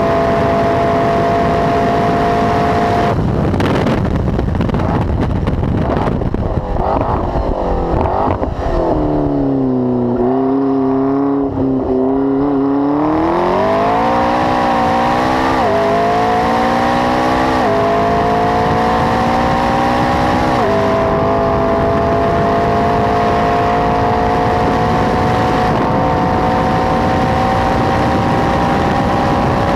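McLaren 12C's twin-turbo V8 with a Milltek exhaust running hard on track. The revs hold high, then fall away about three seconds in as it lifts and shifts down, and stay low for a couple of seconds around the middle. They then climb back in steps with three quick upshifts, each a short dip in pitch, and keep rising toward the end.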